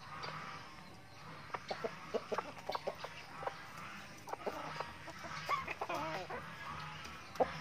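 Chickens clucking as they peck at feed: many short clucks throughout, with one longer wavering call about six seconds in.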